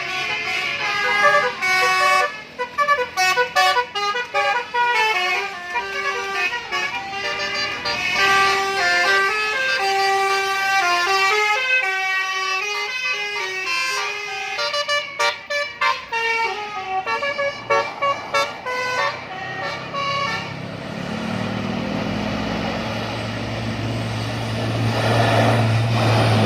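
Bus musical horn of the bansuri (flute-tune) kind, playing a melody of short notes that step up and down for about twenty seconds. Near the end the tune stops and a low steady drone takes over.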